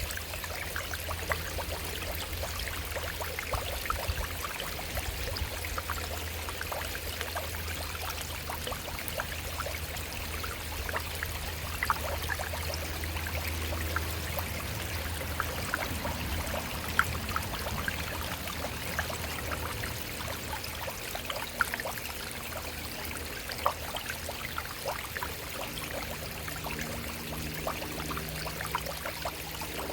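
Shallow stream running over rocks: a steady rush of water with many small splashes and trickles. A low steady hum sits underneath, and a faint low drone with a few held tones comes in near the end.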